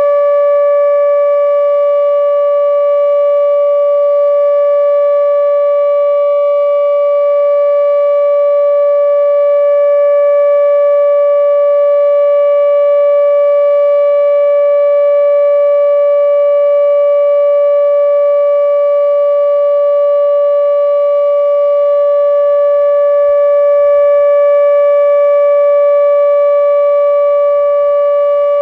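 ATI HPSS-32 electronic siren sounding its steady Alert signal during a test: one unbroken, unwavering tone with overtones above it, holding the same pitch and level without rising or falling.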